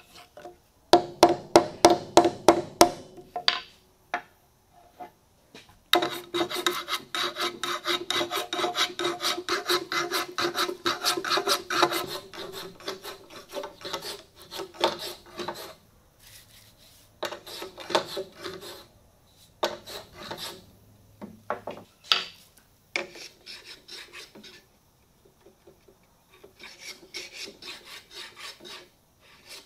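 Hand plane shaving a laminated hardwood blank, a run of quick scraping strokes in bursts with short pauses between them.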